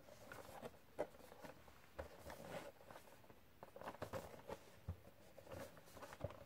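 Faint handling noise of a cardboard Funko Pop! box with a plastic window being turned over in the hands: soft rubs, rustles and light taps, with one sharper tap about a second in.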